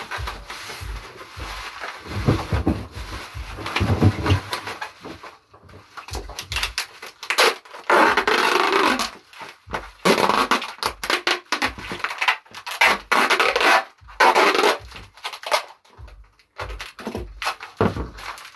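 White plastic wrapping rustling and crinkling as an item is wrapped by hand, with knocks of things handled on a table. The crinkling is densest about eight seconds in.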